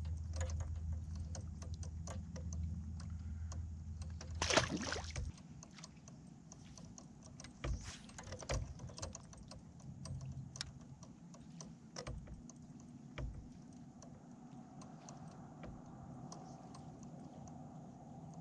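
Many small clicks and ticks from gear on a fishing kayak, with one loud splash about four and a half seconds in as a largemouth bass is let back into the water. A low hum stops just after the splash, leaving scattered light knocks and clicks.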